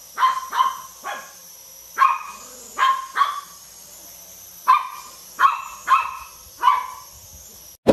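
A small dog barking at a toy quadcopter drone: about ten short, sharp barks, often in quick pairs. Under them runs the steady high whine of the drone's spinning propellers.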